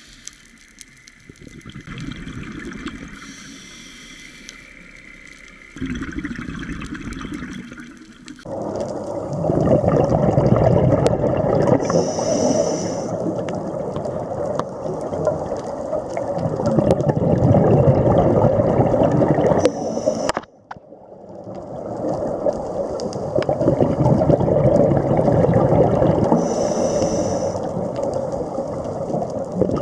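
Muffled underwater sound picked up through a camera housing, quieter for the first several seconds. Then scuba exhaust bubbles bubble and gurgle loudly, swelling in waves every few seconds, cut off briefly about twenty seconds in.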